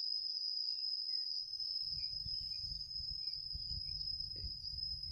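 Steady, high-pitched drone of an insect chorus. From about two seconds in, a low, uneven rumble sits underneath it.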